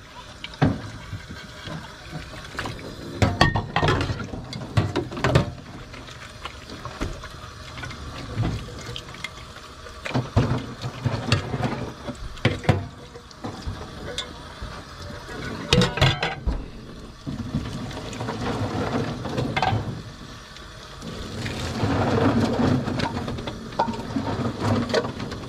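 Tap water running and splashing into a stainless-steel sink while dishes are washed by hand, with scattered knocks and clatter of a bowl and a plate against the sink.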